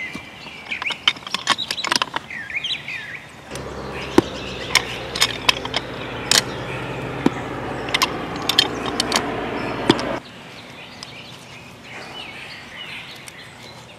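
Pipe wrenches and a threaded metal pipe fitting clicking and scraping as the fitting is worked loose and unscrewed, with birds chirping. A steady low hum comes in suddenly about three and a half seconds in and cuts off about ten seconds in.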